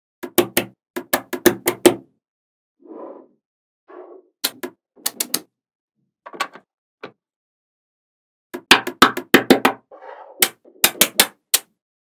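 Small magnetic balls clicking sharply as they snap onto one another, in quick runs of clicks with pauses between, plus a few softer rustling handling sounds.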